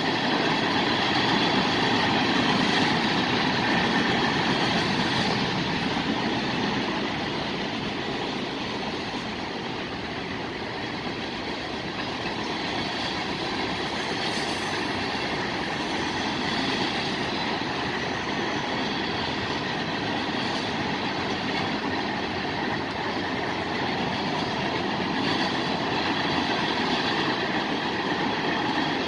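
Freight cars of a mixed freight train (tank cars, covered hoppers, boxcars) rolling past, a steady noise of steel wheels running on the rails. It eases slightly about ten seconds in, then carries on.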